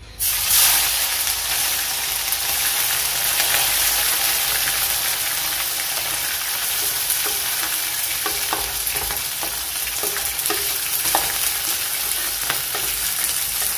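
Small whole fish dropped into hot oil in a metal kadai, the oil breaking into a sudden loud sizzle that then runs steadily as the fish fry. A few light knocks sound through the second half as more fish are scraped in.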